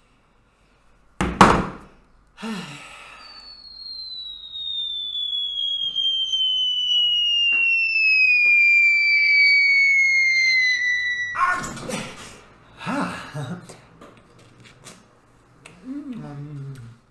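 A sharp thunk about a second in, then a cartoon falling-object whistle sound effect: one long whistle gliding steadily downward over about eight seconds and ending in a crash-like impact.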